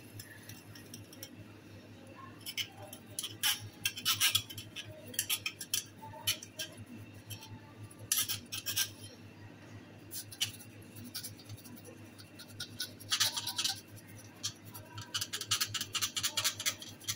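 Bristle brush scrubbing inside the cylinder of a sauce dispenser pump, in bursts of scratching with light clinks. A steady low hum runs underneath.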